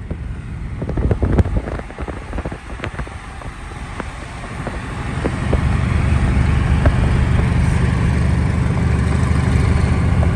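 Dodge Charger exhaust crackling and popping, a string of sharp pops through the first half. Then the engine pulls harder with a deep, steady rumble that builds and holds loud.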